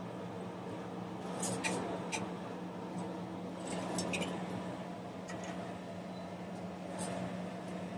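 Hot oil sizzling in a steel kadai as batter-coated potato vadas fry, over a steady low hum, with a few sharp clinks of steel utensils.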